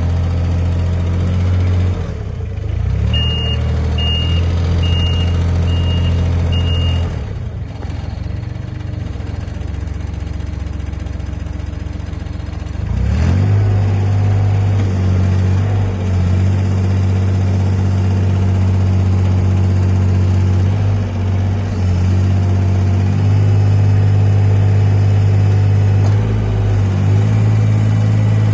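Engine of a Thwaites 1-tonne site dumper running steadily; the engine is a diesel. A reversing alarm beeps five times early on. The engine eases down for a few seconds, then picks up speed about 13 seconds in and runs at higher revs.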